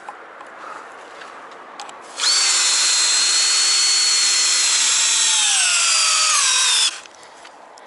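Cordless drill/driver driving a long screw through a wooden step board into a tree trunk. The motor starts about two seconds in with a steady whine, then slows with a falling pitch as the screw draws in, and stops near the end.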